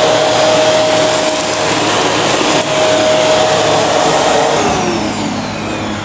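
Shark NV352 upright vacuum cleaner running at full suction while it picks up crushed tortilla chips from a tile floor: a steady rushing noise with a constant motor whine. Near the end the motor winds down with a falling whine.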